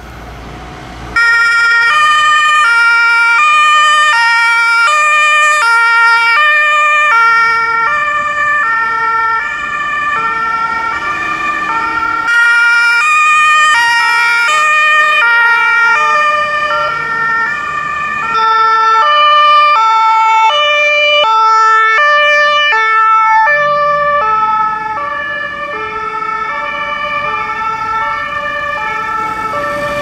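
German two-tone emergency sirens (Martinshorn) on ambulances passing with blue lights, switching evenly between a high and a low tone. The sirens cut in suddenly about a second in. Through the middle a second siren overlaps out of step, and the sound eases a little near the end.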